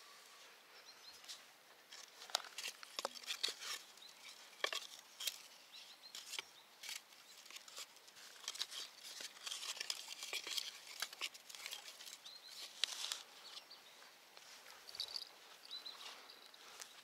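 Faint riverbank ambience: scattered, irregular high clicks and crackles, with a few short high chirps in the last two seconds.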